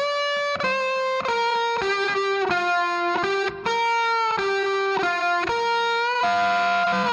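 Music: a melody of held, effects-laden electric guitar notes, changing about every half second, with no drums; the sound dips briefly about three and a half seconds in.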